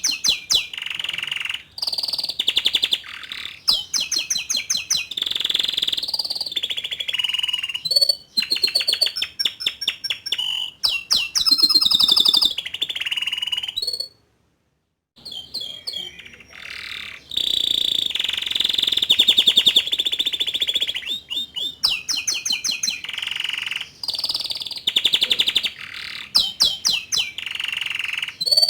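Young male canary singing: long, rapid trills and rolls, with a break of about a second of complete silence near the middle.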